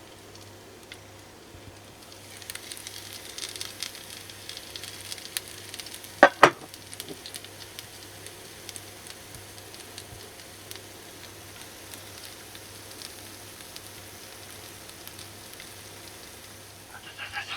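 Salted mackerel sizzling and crackling in a hot microwave grill pan, starting a couple of seconds in. Two sharp knocks sound about six seconds in.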